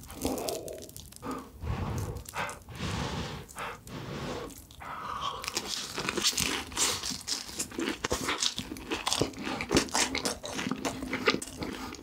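Close-miked eating: food dripping with melted cheese being bitten and chewed, softer at first, then dense, crisp crunching from about halfway.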